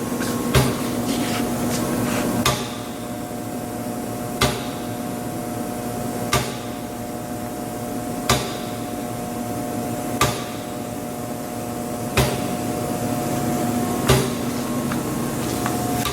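Moore No. 3 jig grinder running: a steady machine hum with a few constant tones, and a sharp mechanical click about every two seconds.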